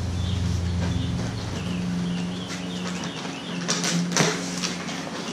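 Cardboard box flaps being folded shut, with dry scraping and rustling of corrugated cardboard and a few louder scrapes near the end. A steady low hum and faint bird chirps sit underneath.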